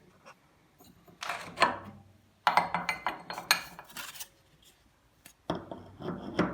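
Metal parts clinking and rattling as a steel bicycle sprocket is handled and fitted onto a milling machine's feed shaft, in three short bouts of clatter with quiet pauses between.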